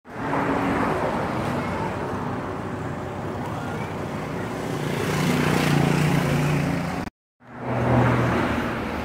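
Road traffic: a steady rush of passing vehicles, swelling as one engine with a low hum goes by about five to six seconds in. The sound cuts out briefly about seven seconds in.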